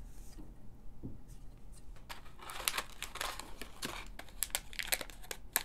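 Anti-static plastic bag crinkling as a circuit board inside it is handled, a quick run of crackles starting about two seconds in.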